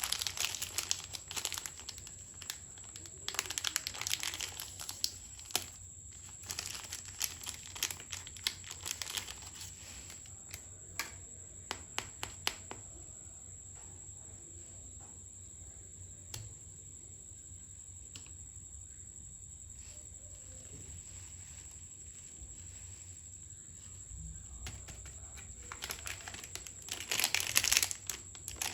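Crinkly plastic snack packets being handled, crackling busily for the first several seconds and again near the end, with a quieter stretch of only occasional crackles in between.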